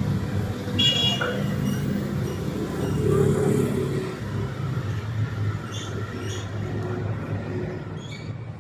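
Street traffic noise: the low, steady sound of vehicles running on a town road, with a brief high-pitched squeak about a second in.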